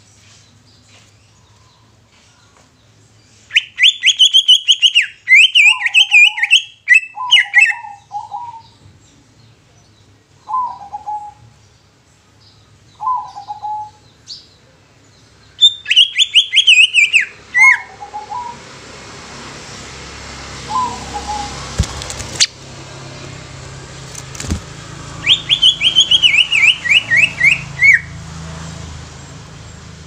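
A caged cucak ijo (green leafbird) singing in three bursts of quick, high, downward-sweeping notes, with short lower chirps in between. A steady background noise builds in the second half, with two sharp clicks.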